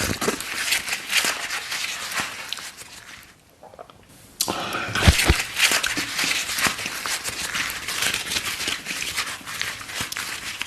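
Close-miked eating sounds: wet chewing and crunching with quick mouth clicks and crackles. They pause for about a second about three and a half seconds in, then resume with two low thumps.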